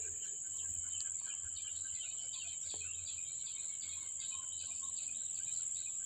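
A steady, high-pitched insect drone, with birds chirping over it in short, quickly repeated notes.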